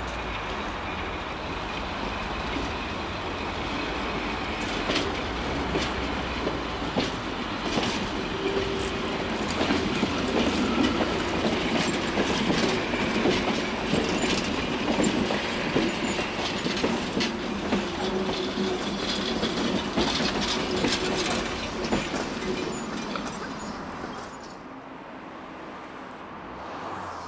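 Slow-moving vintage electric train, the Trossinger Eisenbahn's 1938 Esslingen railcar T3 hauling the ET 91 glass railcar, rolling over jointed track and points: wheels clicking and knocking over rail joints over a steady running hum. It grows quieter near the end.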